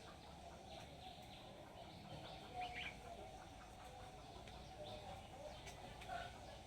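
Faint bird chirps and calls, with a few slightly louder chirps partway through and near the end, over a steady outdoor background hum.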